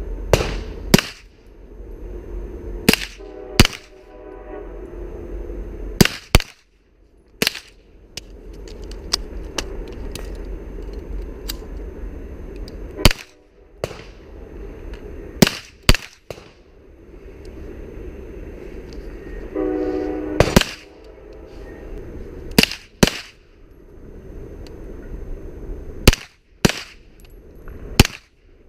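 A slow, deliberate string of gunshots, about sixteen in all, often fired in pairs a fraction of a second apart with longer pauses between pairs, each crack followed by a short echo. A brief low tone sounds twice between shots.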